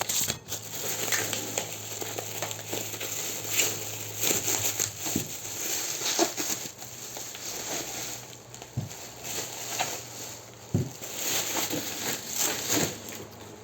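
Packaging being handled and opened by hand: steady crinkling and rustling, with many small clicks and knocks throughout.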